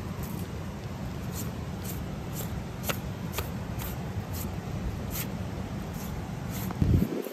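Lamb pelt being pulled away from the carcass by hand, with short, crisp tearing ticks about twice a second as the membrane gives, over a steady low rumble. A thump about seven seconds in.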